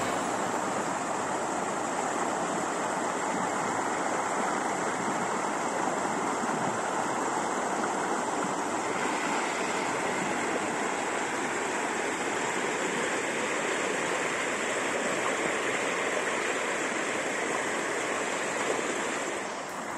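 Steady rush of flowing water, an even hiss at constant level.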